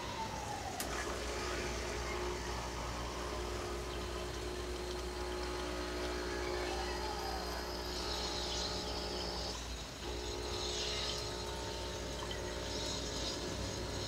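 Capsule coffee machine's pump running with a steady low hum as it brews into a glass, starting about a second in, with a hiss of coffee spraying from the spout in the later part.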